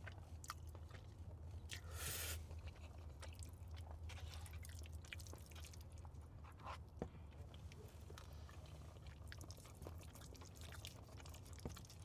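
Close-up eating of spaghetti in sauce: soft chewing with many small wet mouth clicks, and a short slurp of noodles about two seconds in, over a steady low hum.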